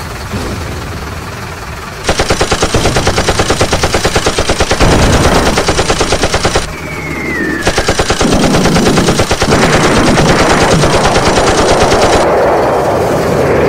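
Machine-gun sound effect: two long bursts of rapid, evenly spaced shots with a short gap between them, and a short falling whistle in the gap.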